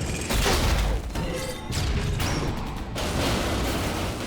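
Dense layered battle sound effects: a string of heavy booms and impacts roughly a second apart, mixed with whooshes and clanking robot mechanisms.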